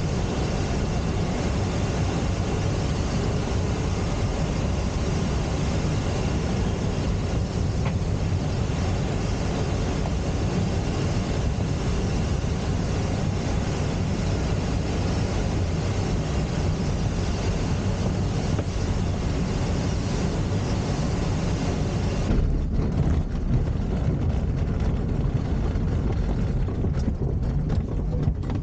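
Glider in flight on final approach with its airbrakes extended: a steady rush of air over the cockpit with a low rumble beneath. About three-quarters of the way through the hiss drops off suddenly, leaving a rougher rumble with a few knocks near the end.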